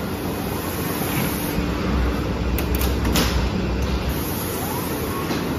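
Steady hum and hiss of automated PCB production machinery. About two seconds in, a low motor rumble and a few sharp clicks come as the machine's slatted sliding cover moves aside to expose a circuit-board panel on its bed.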